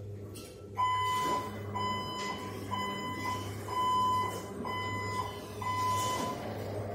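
Hyundai 16BRJ-9 electric reach truck's travel warning beeper sounding as the truck drives: six even beeps, about one a second, over a steady low hum.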